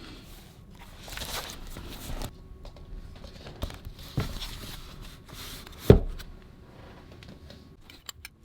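Crinkling and rustling of wrapping being handled, with a few light knocks and one sharper knock about six seconds in.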